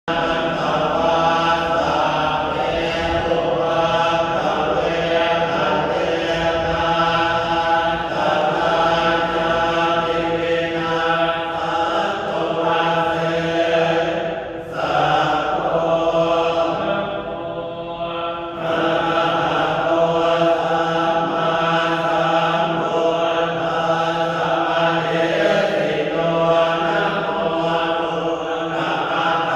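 A group of Buddhist monks chanting together, a steady droning recitation of a protective chant for freedom from all dangers. About halfway through the chanting turns briefly quieter and thinner before the full chant resumes.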